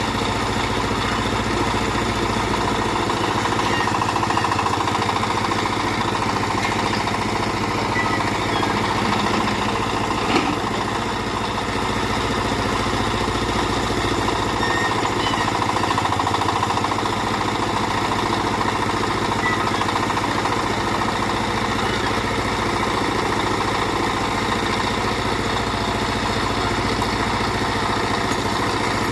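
Small backhoe's engine running steadily while it works loading a tipper truck, with one sharp knock about ten seconds in.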